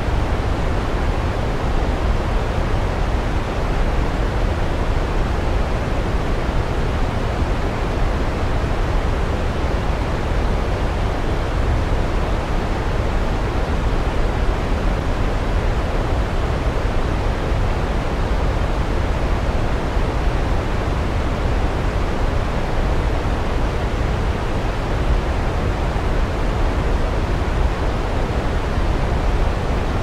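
Waterfall ambience: falling water rushing in an even, deep hiss that never breaks or changes.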